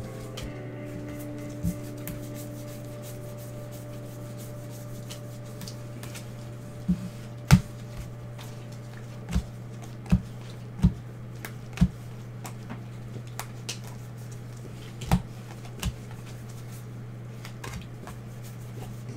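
Baseball trading cards handled and flipped through in gloved hands, with about nine sharp taps and clicks as cards are snapped, squared and set down, most of them bunched in the middle, over a steady low hum.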